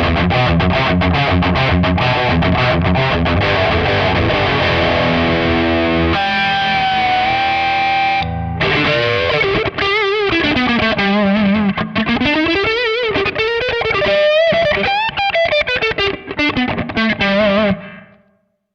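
Electric guitar, a Fender Stratocaster played through a Nux MG300 modelling processor's amp simulation with a distorted tone. It starts with dense chord riffing for about six seconds, then a held note, then a single-note lead line with string bends and vibrato. The sound fades out just before the end.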